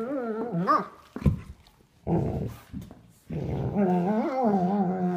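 Sable German Shepherd play-growling while wrestling, in drawn-out growls that waver in pitch: one at the start, short ones around one and two seconds in, and a long one from about three seconds in.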